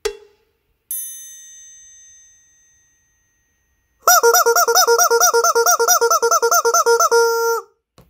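A shrilling rubber chicken squawking: a loud warbling honk that pulses about six or seven times a second for some three seconds, then holds one pitch briefly and cuts off. A single chime rings out and fades about a second before it.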